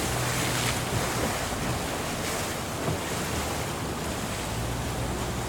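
Wind buffeting the microphone and water washing around a boat on open water, with a low steady hum at the start and again near the end.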